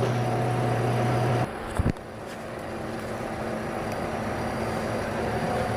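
Steady indoor background hum and noise. A low hum cuts off about one and a half seconds in, followed by a brief thump.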